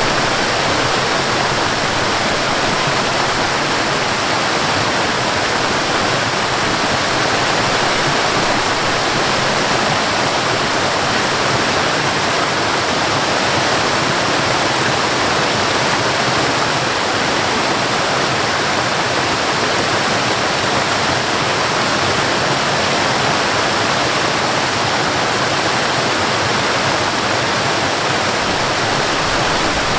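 Waterfall: water falling and rushing steadily, an even, unchanging wash of sound.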